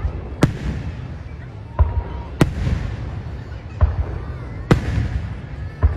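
Aerial fireworks bursting overhead: about six sharp booms at uneven intervals, each trailing off in a short echo, over a continuous low rumble.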